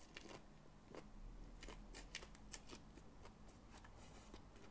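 Faint, irregular crisp clicks and crunches of a papaya salad wrap being handled and bitten into, the raw papaya and cabbage crunching.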